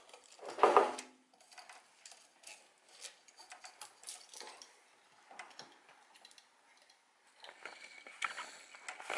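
Plastic clicks and knocks of a typewriter daisy-wheel cassette being handled and fitted into the machine, with a louder clatter about a second in and a quicker run of clicks near the end.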